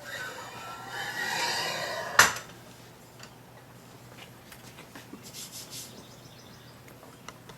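A metal telescope tripod being handled out of its cardboard packing: scraping and rubbing for about two seconds, ended by a sharp knock, then faint scattered clicks.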